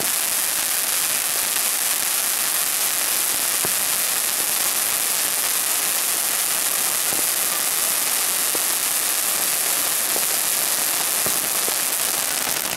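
Ground fountain firework spraying sparks: a steady, even hiss with a few faint crackles scattered through it.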